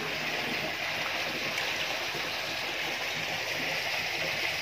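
Steady rush of running water, even and unbroken, with no distinct splashes.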